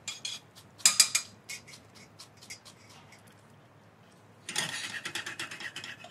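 Chef's knife finely chopping shallot on a wooden cutting board: quick rows of knife taps, loudest about a second in, then a denser run of scraping as the blade works over the minced shallot near the end.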